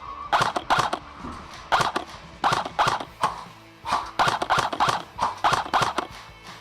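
Airsoft rifle fired in quick single shots, about fifteen sharp clacks, often two close together.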